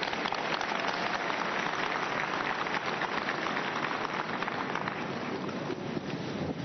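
A large congregation applauding: a dense, even patter of many hands clapping, easing slightly near the end.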